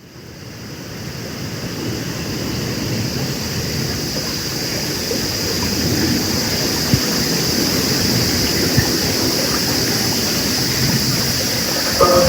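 Outdoor ambience fading in: a steady broad rumble with a constant high-pitched drone over it. Near the end, the first notes of a disaster-warning loudspeaker chime begin.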